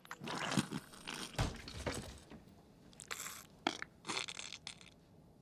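Crunching and chewing of crunchy snack chips, in two runs of irregular crunches, the second starting about three seconds in.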